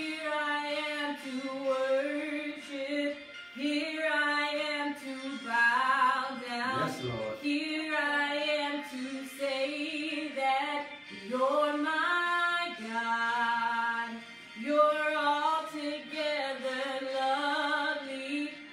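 Gospel worship singing: a woman's voice sings long held notes with short breaks between phrases.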